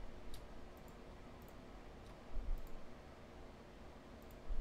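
Computer mouse clicking, a handful of separate sharp clicks a second or so apart, with a few dull low bumps in between.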